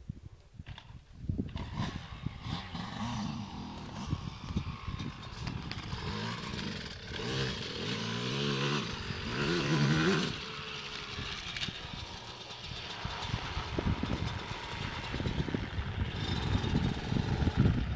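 Yamaha 125 cc dirt bike engine running and revving as the bike rides across ice. The engine comes in about a second in and rises and falls in pitch through repeated revs, loudest around halfway.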